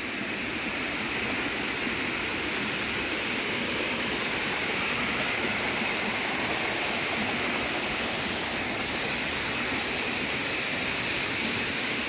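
Steady rush of running water, falling and flowing close to the trail.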